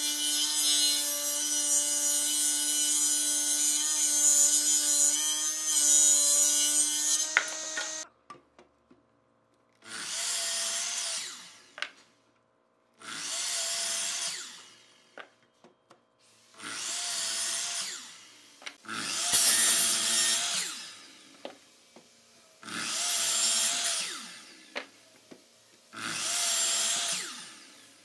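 A table saw runs and rips lengthwise through a log for about eight seconds, then stops abruptly. A Makita miter saw then makes about six short cuts through a square block, each lasting a couple of seconds, with near quiet between them.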